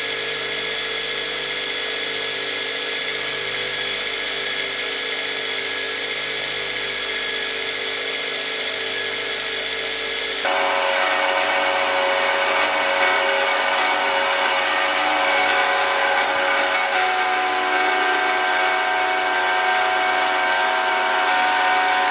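Belt grinder running, with a small metal nut pressed by hand against the moving abrasive belt, first on the contact wheel and then on the flat of the belt. It is a steady whine whose pitch changes about ten seconds in.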